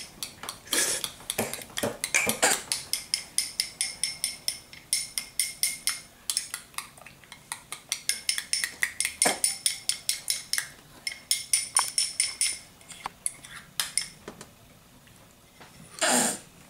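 A spoon clinking and scraping against a small ceramic bowl while scooping baby food, in quick runs of sharp, ringing clicks about three to four a second, pausing near the end. A short louder sound comes near the end.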